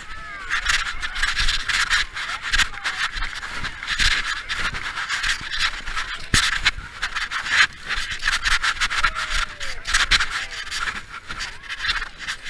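Clothing rustling and rubbing against a body-worn camera's microphone as the wearer bends and shuffles along, a dense continuous scratchy noise. Faint children's shouts are heard underneath.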